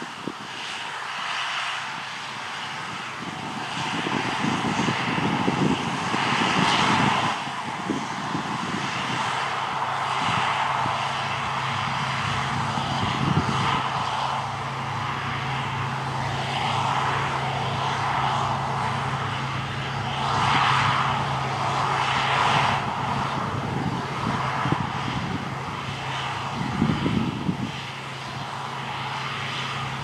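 New Holland CX8040 combine harvester working in standing wheat: a steady engine drone with the running hum of its machinery. A few deeper rumbles come and go, about four to seven seconds in and again near the end.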